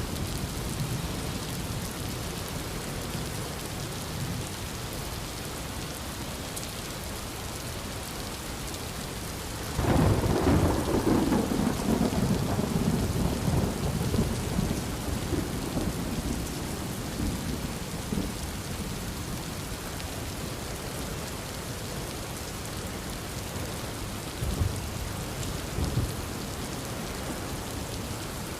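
Steady heavy rain, with a loud thunderclap breaking in about a third of the way through and rolling away over several seconds; a couple of fainter low rumbles come near the end.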